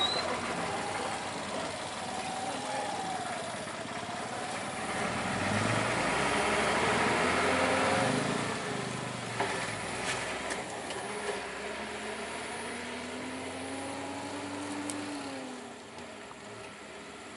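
Vehicle engines running on the road, a steady mechanical drone with a few pitch glides. The noise swells about five seconds in and eases off near the end.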